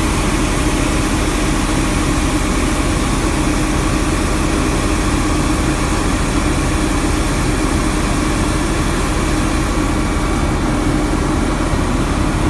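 Johnston street sweeper running steadily, heard from inside the cab: a constant, even engine and machinery drone with a steady low hum.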